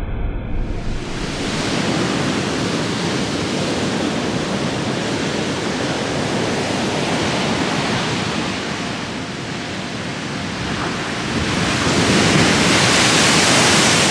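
Heavy Mediterranean surf left by a storm, breaking on the beach in a continuous rush of water. It eases a little about two-thirds through, then swells louder near the end as a big wave crashes in a burst of spray.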